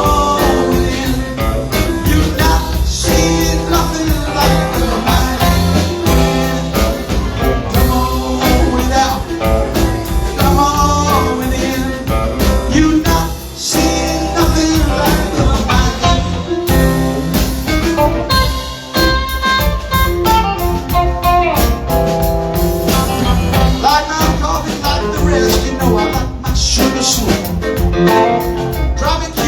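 Live band playing a bluesy rock song: guitar over bass and drums, with singing.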